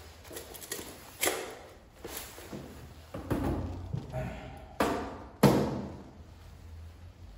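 Several separate sharp knocks and thumps with a short room echo, the loudest about a second in and two close together around five seconds in: handling noise as a rubber door-guard strip is fitted to a car door.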